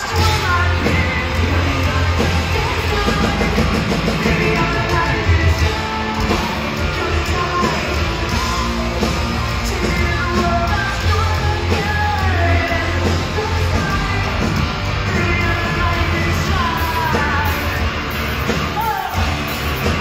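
A rock band playing loud and live, with a lead vocalist singing over electric guitars, bass and drums, heard from within the crowd.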